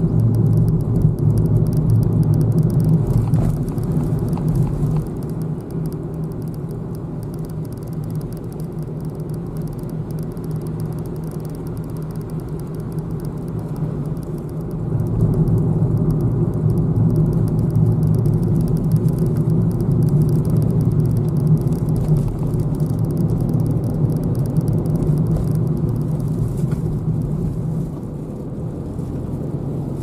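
A car's engine and road noise heard from inside the cabin while driving, a steady low hum that drops a little about five seconds in and swells again about halfway through.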